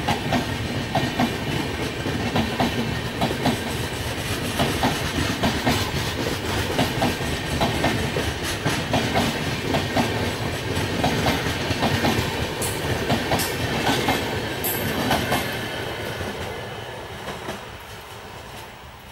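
Passenger train coaches rolling past at speed, their wheels clattering over the rail joints in a repeating clickety-clack. The sound fades away over the last few seconds as the end of the train passes and draws off.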